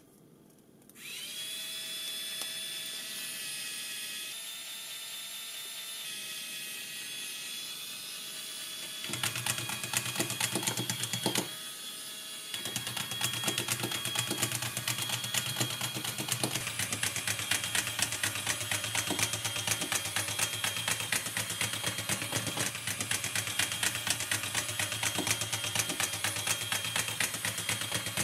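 Small geared DC motor whining as it spins up about a second in, when the 9-volt battery is connected. From about nine seconds in, the walking toy robot's gearbox and legs add a rapid, steady clatter of clicks on the tabletop, with a short drop near the middle.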